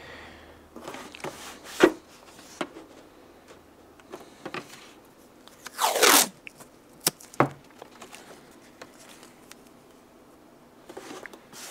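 Handling noise: a paper template and a model aircraft cowl being moved and taped on a workbench, with scattered taps and knocks. About six seconds in there is a short, loud rasp of masking tape being pulled off its roll.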